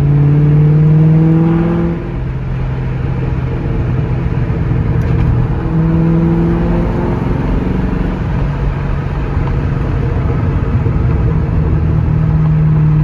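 2003 Ford Mustang Mach 1's 4.6-litre DOHC V8 and road noise heard from inside the cabin while driving. The engine pulls strongly, eases off about two seconds in, and pulls again around six seconds and near the end. No whine or howl from the rear differential: the rebuilt pinion is quiet, the sign that it went back in with correct preload.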